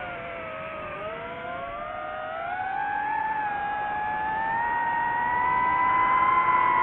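DJI FPV drone's motors and propellers whining in several pitches at once. The whine dips about a second in, then climbs steadily and grows louder as the motors speed up.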